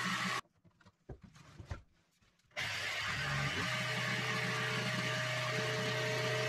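Festool Carvex jigsaw running and cutting along a guide rail, a steady motor hum with blade noise. About half a second in the sound drops out for roughly two seconds, then the saw runs on steadily.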